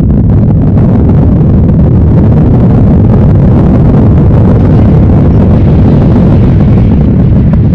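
Recreated earthquake sound: a loud, continuous deep rumble with no separate impacts.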